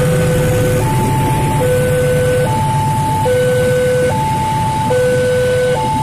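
Railway level-crossing warning alarm sounding an electronic two-tone signal, switching between a higher and a lower tone slightly less than once a second. Under it is the steady low rumble of a freight train's wagons rolling past on the rails.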